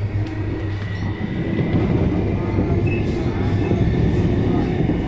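Inside a car of an MTR East Rail line Metro-Cammell (MLR) electric multiple unit on the move: a steady low hum under wheel and rail noise, getting a little louder about a second and a half in.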